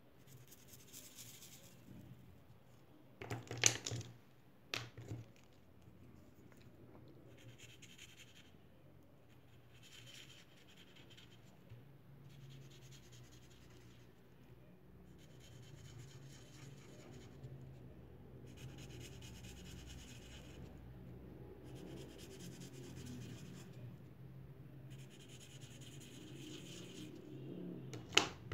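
Felt-tip marker rubbing on paper in short scribbles of about a second each, colouring in small circles. A few sharp clicks cut in, the loudest about three and a half seconds in and another near the end.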